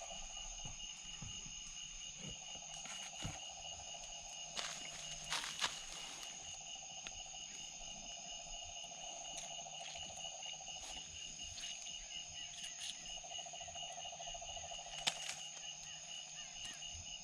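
Steady night chorus of crickets and other insects trilling, with a lower pulsing trill that fades in and out. A few soft clicks sound about five seconds in and again near fifteen seconds.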